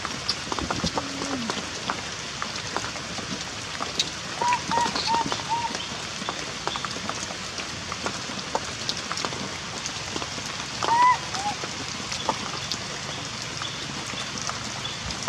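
Heavy rain falling steadily, with a baby monkey's short high squeaks: four quick ones about four to five seconds in and one louder call near eleven seconds in.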